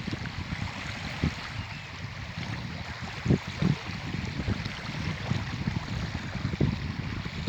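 Strong gusty wind buffeting the microphone in short low thumps over a steady rush of wind and lapping water at the lake's edge.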